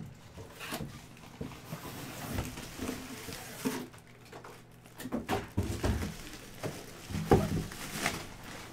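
Handling noise from a cloth drawstring bag holding a football helmet being worked open: irregular rustling and taps, with a few heavier thumps in the second half.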